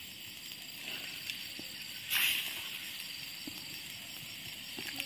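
Pieces of fish slipped into a pan of boiling coconut milk over a wood fire: a short splash about two seconds in, with a few small clicks of the spoon and fish against the pan, over a faint steady hiss.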